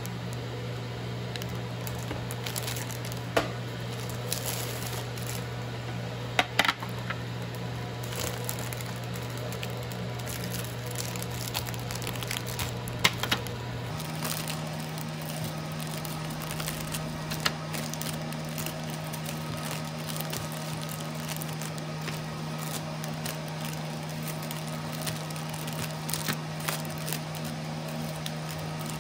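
Clear cellophane cookie bags crinkling and rustling in the hands as wrapped chocolate cookies are picked up and set down, with several sharp crackles, over a steady low hum.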